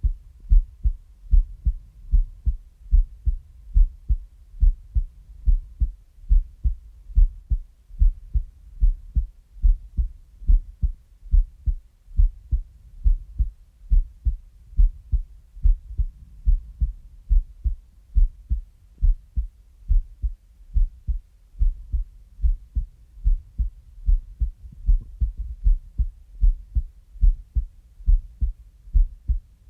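Human heartbeat: low, dull thumps in a steady, even rhythm.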